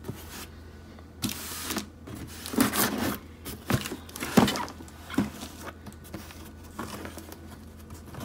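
Cardboard shipping box being cut open and handled: a blade scraping along the box and its tape, with scuffs and knocks as the box is turned over on a table, in a series of short irregular bursts, loudest a little past the middle.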